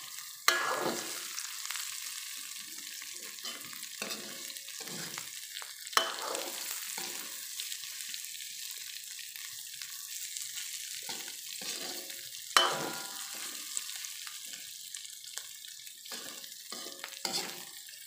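Tempeh and green chillies sizzling as they stir-fry in an aluminium wok, a metal spatula scraping through them again and again. The spatula knocks sharply against the wok three times: about half a second in, about six seconds in and about twelve and a half seconds in.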